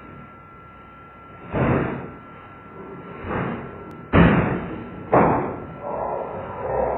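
Slowed-down audio with four dull thuds, each drawn out and smeared, the loudest two hitting suddenly about four and five seconds in, over a faint steady whine.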